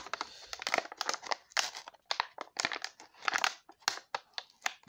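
Plastic blister pack of a PEZ dispenser being worked open by hand, crinkling and crackling in irregular bursts.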